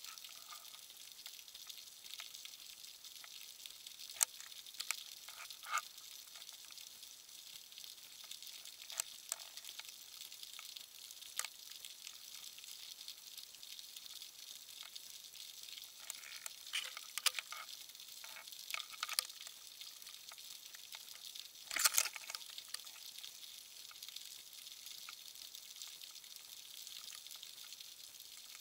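Underwater sea ambience heard through a submerged camera: a steady high hiss with scattered sharp clicks and crackles. The clicks cluster in the middle, and the loudest knock comes about three-quarters of the way through.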